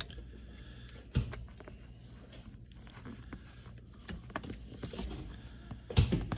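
Faint scraping and scattered clicks of a pointed tool being poked through carpet, probing for a bolt hole in the floor beneath. There is a knock about a second in and a louder thump near the end.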